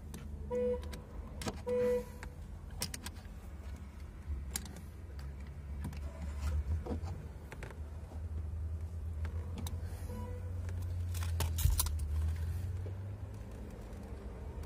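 Daewoo Nexia's horn giving two short toots about a second apart, then a faint brief blip around ten seconds in, as the horn circuit at the steering wheel is tested during repair. Clicks and knocks of tools and hands at the steering column come between them.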